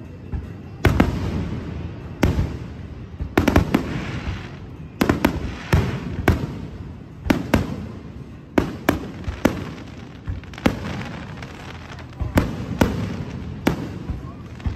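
Aerial firework shells bursting in a rapid, irregular string of sharp bangs, often several a second and some in quick pairs.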